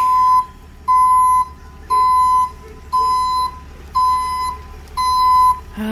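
A flatbed tow truck's reversing alarm beeping about once a second, six even, single-pitched beeps, over a low steady rumble.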